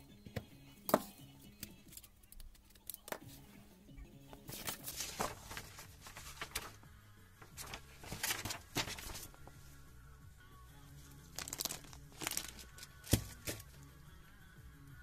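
Soft background music with paper rustling and crinkling as a printed parts diagram sheet is handled. There are a few sharp clicks and knocks from metal tools on the breaker housing, the loudest about a second in and near the end.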